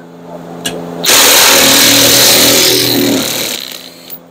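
A handheld power tool runs for about two and a half seconds, starting about a second in, backing out a bolt of the engine undercover. A steady hum from a shop heater burning used oil runs underneath before and after.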